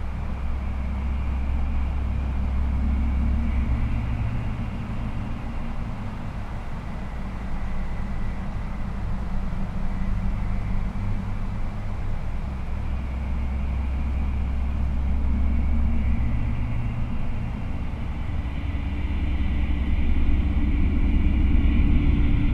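A deep, continuous low rumble that swells and eases in slow waves, with a faint high tone held above it.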